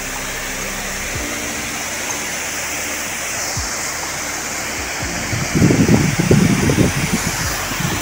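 Wind blowing over the microphone beside open water: a steady rushing hiss. About five seconds in, gusts buffet the microphone as uneven low rumbles for two or three seconds.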